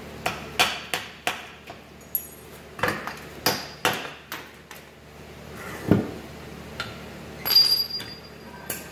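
Hand hammer striking steel, driving a pin out of a tractor three-point hitch arm: a dozen or so sharp, irregularly spaced metallic blows, some ringing, with a duller thud about six seconds in and a ringing clank near the end.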